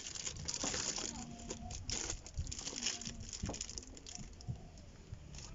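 Clear plastic film wrapped around a thermal label printer crinkling and crackling in irregular bursts as the printer is handled and turned over in the hands.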